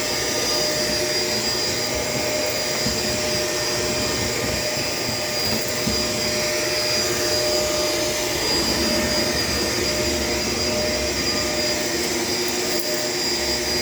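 Shark LA702 vacuum cleaner running steadily, a constant rushing noise with a high steady whine on top.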